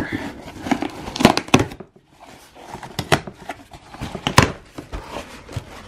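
Cardboard shipping box being opened by hand: the slit packing tape tearing and the flaps being pulled apart, with a series of sharp cardboard snaps and scrapes and rustling in between. The loudest snap comes about four and a half seconds in.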